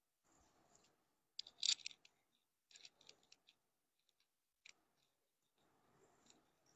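Faint rustling and clicking as clothes are handled, with a short crinkly burst about one and a half seconds in, then a few scattered soft clicks.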